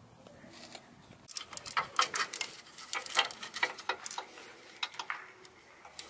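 Irregular light clicks and taps of hand work on a car's hood latch mount and its bolts, clustered between about one and five seconds in.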